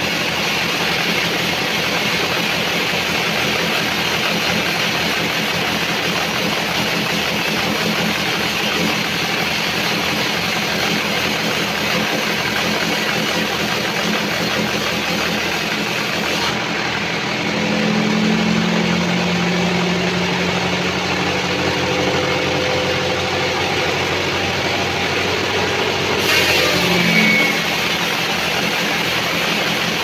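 Band sawmill running steadily as its blade saws lengthwise through a large albasia (sengon) log. A low hum swells briefly a little past halfway and again near the end.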